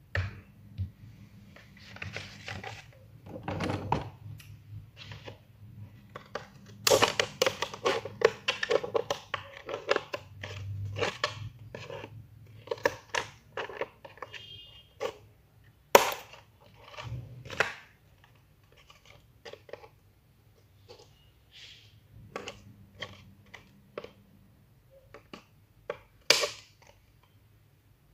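Hands working craft materials for a homemade Pop It, with irregular taps, clicks and rustles. A quick run of them comes about seven to ten seconds in, and single sharp snaps come around sixteen and twenty-six seconds in.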